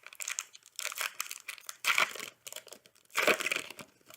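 Foil trading-card pack wrapper crinkling as it is handled, in several noisy bursts, loudest about two seconds and about three seconds in.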